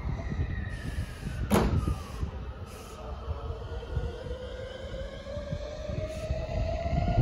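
JR West 289 series electric train's traction motors whining, rising slowly in pitch as it begins to pull away, over a low rumble. There is a sharp brief squeal about a second and a half in.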